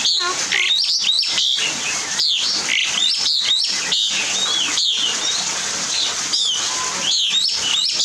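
Several birds chirping and calling at once: a quick run of sharp chirps and short notes that slide downward, with hardly a pause.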